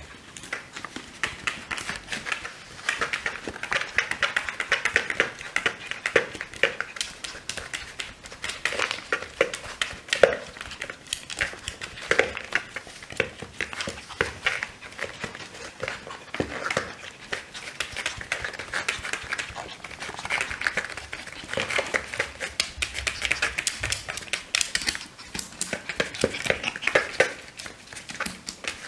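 Maltese puppy scrabbling and scratching at a plastic laptop lid: rapid, irregular claw clicks and scrapes that come in flurries throughout.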